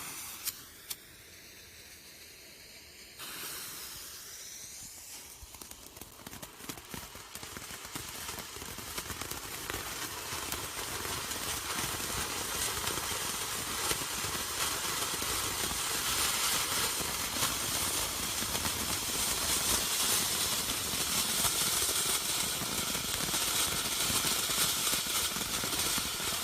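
Consumer firework fountains burning. A faint fizz comes first, then about three seconds in the fountains erupt into a steady spraying hiss full of fine crackles that grows louder as they build.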